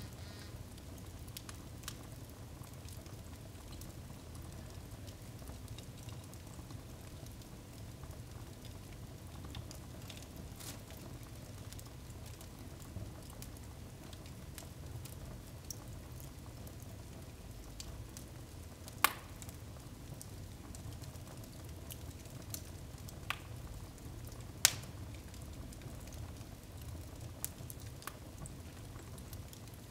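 Wood fire burning in a fireplace, crackling steadily with scattered small snaps and a few sharp, loud pops, the loudest about two-thirds of the way in and again a few seconds later.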